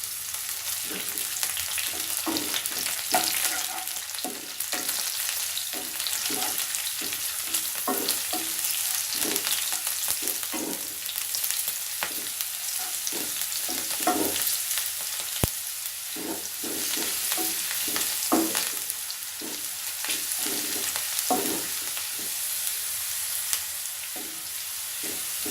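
French beans frying in hot oil in a kadhai on a high flame, with a steady sizzle. A spatula stirs them, scraping and knocking against the pan again and again at an uneven pace.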